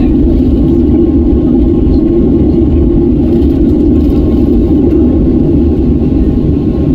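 Cabin noise of a Boeing 737-700 taxiing: a steady low rumble from its CFM56 jet engines at taxi power, with a faint steady whine above it.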